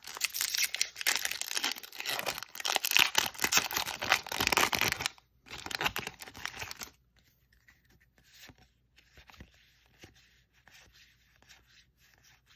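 Foil wrapper of a Magic: The Gathering Ikoria collector booster pack being torn open and crinkled, loud for about five seconds, with a second shorter crinkle around six seconds in. Then faint rustling as the cards are slid out and handled.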